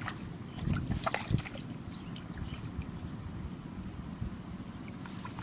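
Hands squelching and sloshing through shallow muddy water, with a few louder splashes about a second in, over a low rumble of wind on the microphone.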